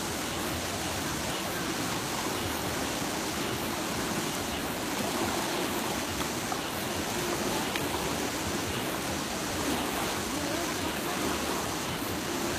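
Steady, even rushing noise.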